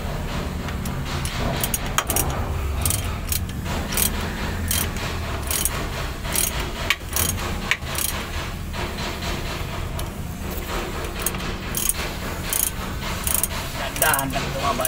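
Irregular metallic clinks and taps of hand tools and bolts against a truck's ZF transmission housing, one every half second or so, over a steady low hum.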